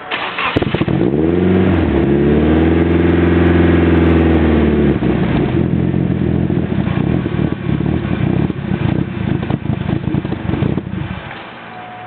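Nissan SR20DET turbo four-cylinder fires and surges up to a high, steady idle on its own, then runs rough and stumbles unevenly before stalling about eleven seconds in. The hunting and rough running come from a vacuum leak: a vacuum nipple blown off the intake manifold.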